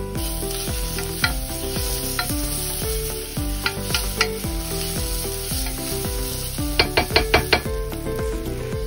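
Onions and tomato purée sizzling in a pot as they are stirred with a wooden spoon, with a few clicks and a quick run of about six sharp taps near the end. Background music with a repeating bass line plays along.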